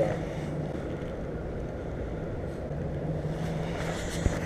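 Distant motorboat's outboard engine running as a steady low hum, over wind rumbling on the microphone, with a single dull thump near the end.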